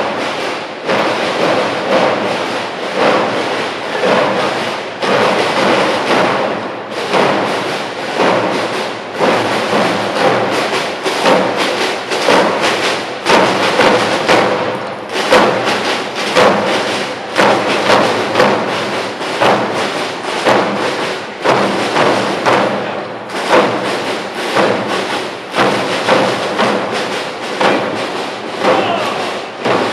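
Military drum corps playing a marching cadence on drums: a continuous run of rapid drum strokes with regular accents.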